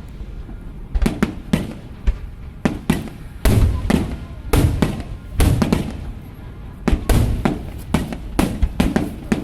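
Aerial fireworks bursting in quick succession: a string of sharp bangs, about one or two a second, starting about a second in, each with a short rumbling tail.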